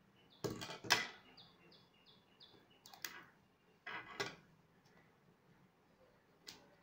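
Scissors snipping and plastic shrink-wrap crackling as it is cut and pulled off a cardboard puzzle box. It comes in a handful of short separate bursts, the loudest about a second in.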